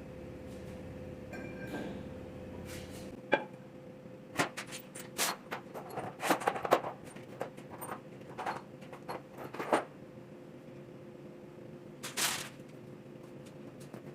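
Scattered short clicks and knocks of metal tools and parts being handled during engine work, thickest in the middle, over a steady hum.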